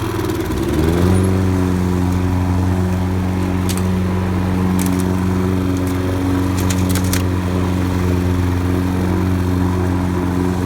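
Lawn mower running: its engine speeds up about a second in, then holds a steady pitch. A few faint clicks can be heard over it.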